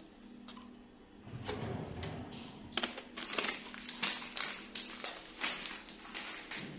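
Plastic instant-noodle packets crinkling and crackling in quick, irregular bursts as they are grabbed and carried, after a drawer slides open about a second and a half in.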